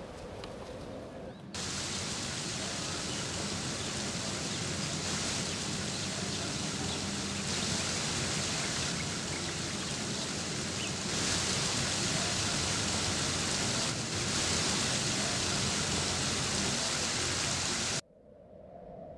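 Steady rush of water from a small waterfall spilling over a stone wall, shifting in level a few times and cutting off suddenly near the end.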